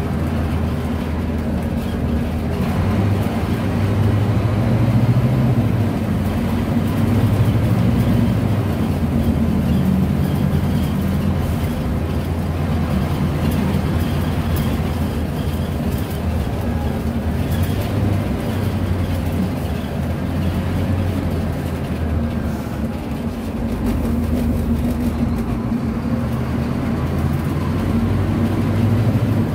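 Scania K250UB city bus heard from inside the passenger cabin while driving. Its rear-mounted Scania DC09 five-cylinder inline diesel engine runs steadily, its note rising and falling several times as the bus pulls away and slows.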